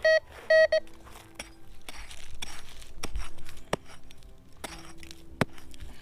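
MD-4030 metal detector giving two short, loud beeps in the first second as its coil passes over a buried metal target. Then sharp strikes and scraping as a small hand pick digs into the dry dirt.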